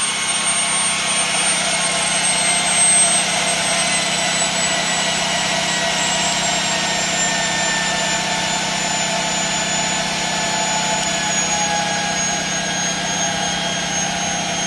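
Tesla turbine with a 3-inch rotor spinning at tens of thousands of RPM: a steady rush of driving gas with a high whine that slowly falls in pitch. The turbine is slowing as more lamp load is switched onto its 3-phase generator.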